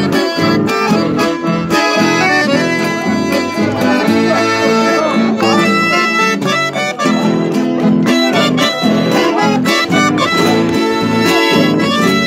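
Piano accordion playing a lively chamamé melody of quick notes, accompanied by acoustic guitars.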